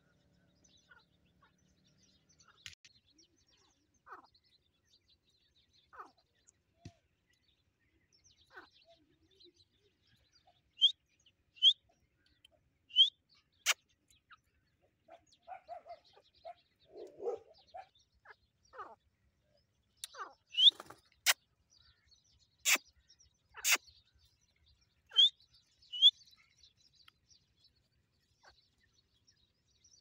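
Grey francolins calling: scattered short, high chirps, several in quick pairs, with softer low call notes in the middle and a few sharp clicks.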